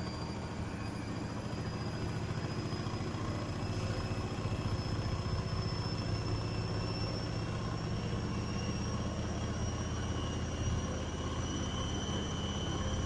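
Washing machine on its final spin with a badly unbalanced load: a steady low rumble, with the motor's whine slowly rising in pitch as the drum picks up speed.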